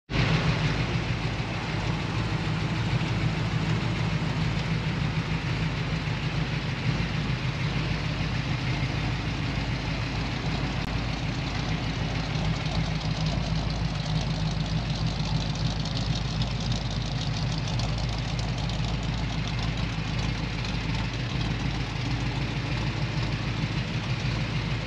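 350 cubic-inch small-block Chevrolet V8 with headers and dual exhaust idling steadily, with no revving.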